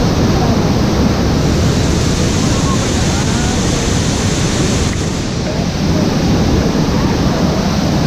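Waterfall pouring onto rocks: a loud, steady rushing of water with no break.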